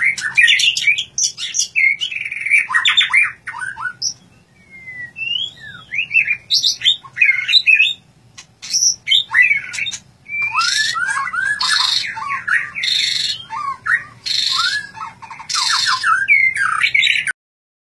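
Caged white-rumped shama (murai batu) singing a fast, varied run of whistled phrases and chirps. In the second half, several harsh, buzzy notes break in among the whistles. The sound cuts off abruptly shortly before the end.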